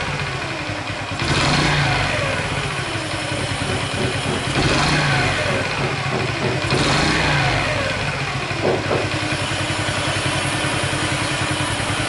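Honda Chaly's small four-stroke single-cylinder engine running, revved up in short blips several times and dropping back to idle. It has a light 'karakara' rattle that is still there with the cam chain tensioner refitted, which the owner now suspects comes from the cylinder head.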